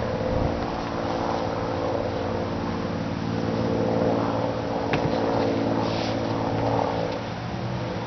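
Steady motor drone with a low hum, swelling slightly around four seconds in, with a couple of faint clicks.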